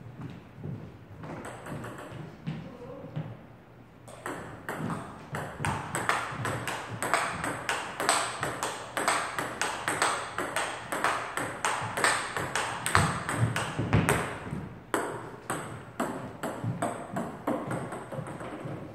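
Table tennis ball clicking back and forth off paddles and the table in a fast rally, several sharp hits a second. The hits pick up about four seconds in and thin out around fifteen seconds.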